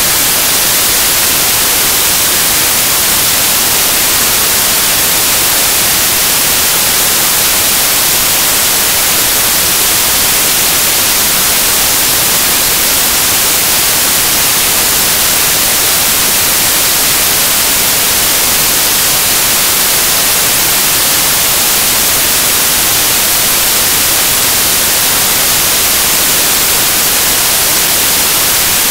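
Loud, steady static hiss, like white noise, unchanging, with no other sound.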